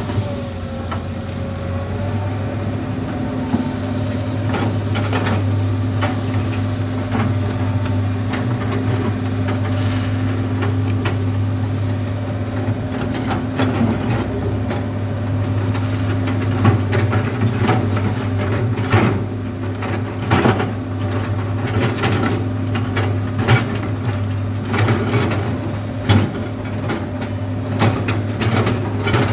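Komatsu PC200 hydraulic excavator's diesel engine running with a steady low hum, while gravel clatters and knocks against the steel bucket in many short sharp hits that come thicker in the second half.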